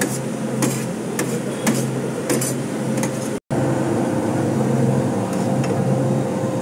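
Metal cleaver and tongs chopping chicken shawarma meat on a steel griddle: sharp metallic clinks, most of them in the first half, over a steady hum. The sound drops out for an instant a little past halfway.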